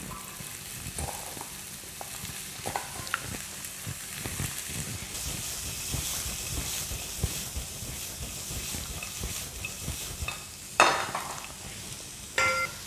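Stir-frying over medium heat: sliced bell peppers and diced sausage sizzling in a non-stick pan, with small clicks and scrapes as the pan is tossed. A louder knock comes near the end, and a shorter one just before the end.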